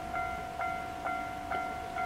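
Japanese railroad crossing warning bell ringing steadily, a single clanging tone repeating a little over twice a second: the crossing signal is active for an approaching train.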